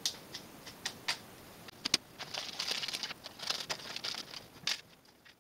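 Small plastic and wooden kit parts being handled and set down on a wooden tabletop. Light clicks and taps come first, with a sharp click about two seconds in, then a stretch of scraping and rustling, and a few more clicks near the end.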